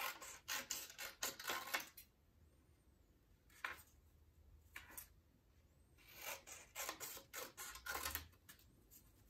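Scissors snipping strips from a sheet of white drawing paper. There is a quick run of snips, then two single snips, then another run near the end.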